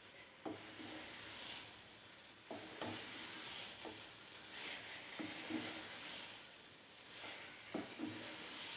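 A spoon stirring thick, freshly cooked rava kichadi in a pan, a soft scraping hiss that swells and fades with each stroke, and several sharp knocks of the spoon against the pan, some with a brief metallic ring.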